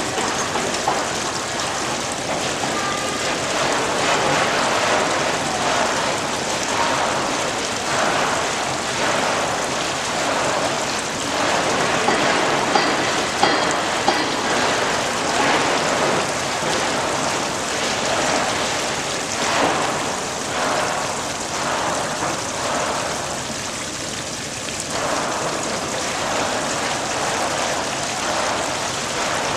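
Steady splashing and pattering of running water, swelling and easing slightly over time.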